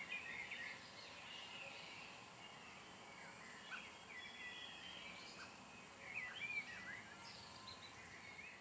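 Faint birdsong: small birds chirping and calling in short, scattered notes, a little louder about two-thirds of the way through, over a low outdoor hiss.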